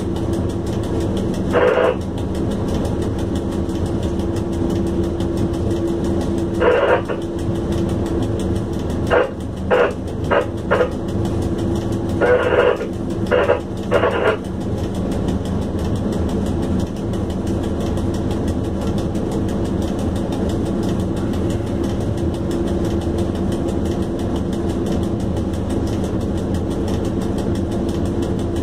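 ET22 electric locomotive running at speed, heard from the cab: a steady hum with a held low tone over the noise of the wheels on the rails. Several short, brighter sounds break in during the first half.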